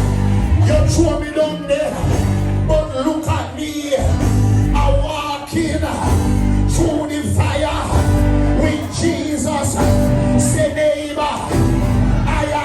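Live church praise music: a band with sustained low notes and frequent percussive hits, with voices singing and shouting over it in a large hall.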